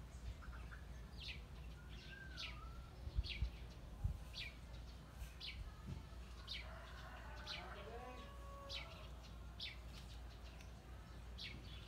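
A bird chirping over and over, short high falling chirps about once a second, with softer warbling calls from other birds in the middle. A few low thumps three to four seconds in.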